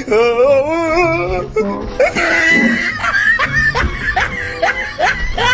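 Background music with a person laughing over it in repeated rising bursts.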